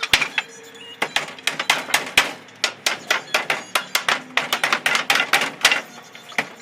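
Hammer striking nails into wooden pallet boards in quick, irregular blows, several a second, during pallet repair.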